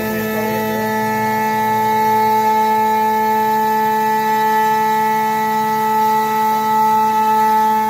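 1325 CNC router's spindle running at a steady speed while its bit cuts a curved groove in a wood board: a steady whine made of several even tones.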